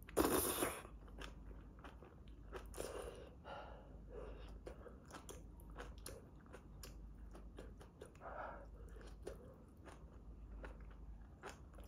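A person eating mala-tang close to the microphone: chewing and mouth noises with many small sharp clicks, and a louder noisy burst right at the start.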